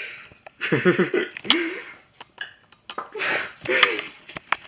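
A person's voice making short sounds without clear words, in about three bursts, with a few sharp clicks near the end.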